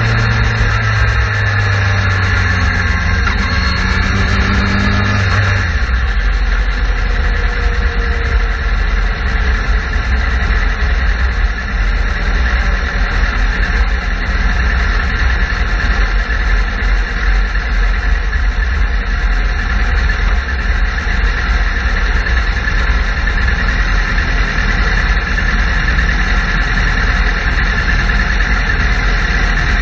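Suzuki GSX-R sport bike's inline-four engine, heard from a camera mounted on its fairing. The engine note drops in pitch in steps over the first several seconds as the bike slows, then runs low and steady as it rolls on and stops.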